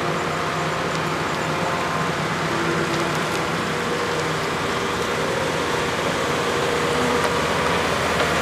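Wacker Neuson 9503 wheeled excavator's diesel engine running steadily as the machine maneuvers, a continuous drone that grows slightly louder near the end.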